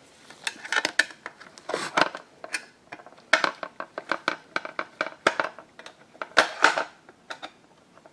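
Irregular plastic and metal clicks and clatters of an internal DVD drive being handled and pried at, its front bezel held by clips that will not release.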